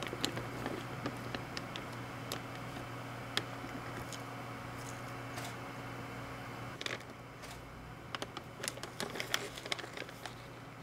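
Light handling sounds: a plastic jerky bag crinkling in scattered sharp clicks, with busier clusters of rustling about seven seconds in and near the end, over a steady low hum.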